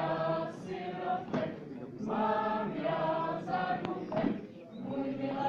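A group of women singing a folk song together, in phrases of held notes with short breaks between them.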